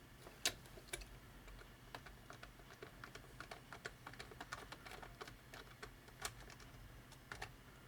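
A quiet run of small, irregular clicks and ticks, with a few sharper clicks about half a second in and near the end.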